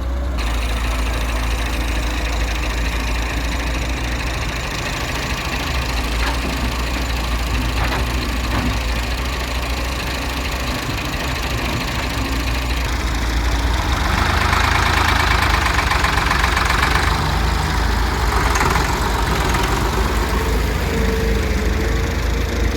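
Heavy diesel engine running steadily with a low rumble, as an excavator works loading mud into a tractor trolley. It grows louder and harsher for a few seconds past the middle, then settles back.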